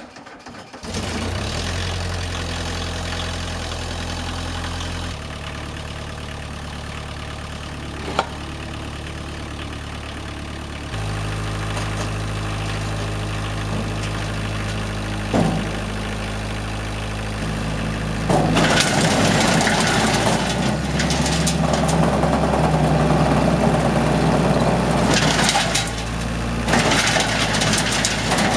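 The 40 kW diesel engine of a homemade trailer-mounted wood chipper starts and catches within about a second, then runs steadily, its pitch stepping twice in the first half. From about two thirds of the way in it gets louder, with a rushing noise from the spinning chipper on top of the engine.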